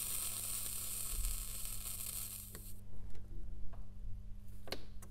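Hot soldering iron tip sizzling for nearly three seconds, then a few light clicks, the sharpest near the end.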